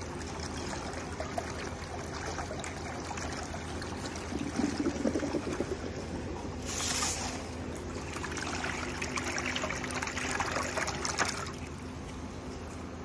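Water trickling and splashing in a pedicure spa chair's foot basin as its whirlpool jet churns the water, over a steady low hum. The splashing grows louder in stretches from about four seconds in.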